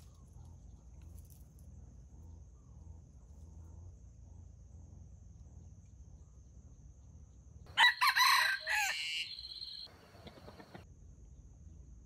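A rooster crows once about eight seconds in, a loud call of roughly two seconds, over a steady faint high-pitched background tone.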